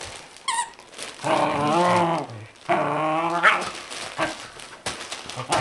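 Dogs play-wrestling: two long, wavering play growls of over a second each, the second ending in a sharp yip, with a short high squeak about half a second in.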